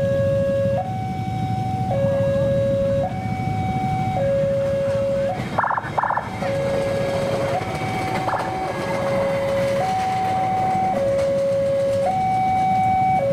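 Two-tone electronic warning alarm, switching between a lower and a higher tone about every second, over a steady low rumble. A brief rattling burst cuts in about six seconds in.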